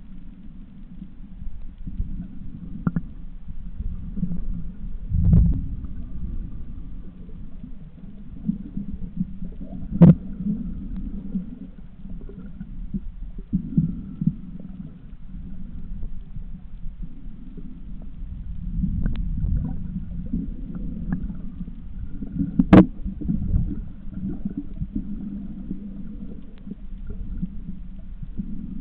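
Muffled low underwater rumble as picked up by a camera in a waterproof housing, with a few sharp clicks, the loudest about ten seconds in and again near twenty-three seconds.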